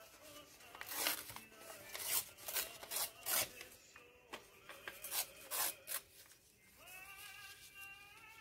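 Yellowed old book pages being torn and handled by hand: a series of short, sharp rips and paper rustles through the first six seconds. Soft background music with long held notes comes in near the end.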